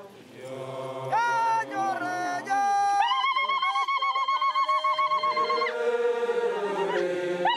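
Pokot dance song: a group of men chanting low while a woman's high voice rises over them from about a second in, holding long notes that waver quickly up and down in pitch.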